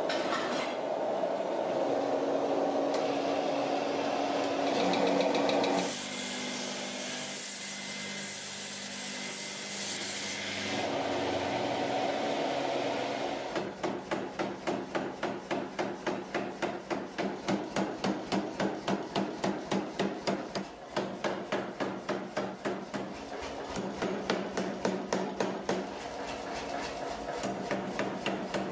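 Gas forge burner running with a steady roar while steel bars heat. About halfway through, a power hammer starts pounding a red-hot bar in quick, even blows, about three a second, with a couple of short pauses.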